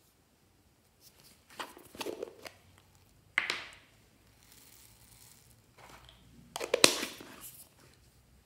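Small clear plastic jar of foam beads being handled: its soft orange cap is worked off and back on, and the beads rattle and spill out. Three short bursts of rustling and clatter, the last the loudest, with a sharp snap.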